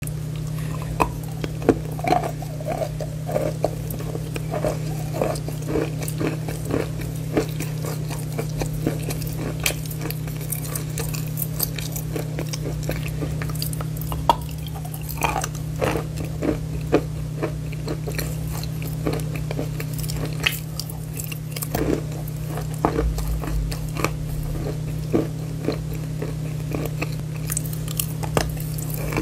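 Close-miked ASMR chalk eating: sharp crunches as bites snap off a brown chalk bar, then crunchy chewing of the chalk, repeating again and again over a steady low hum.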